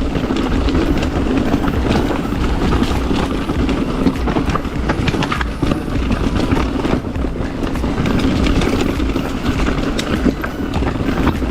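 Mountain bike descending fast over a rocky trail, its tires, frame and chain clattering with many small irregular knocks over a steady rolling rumble.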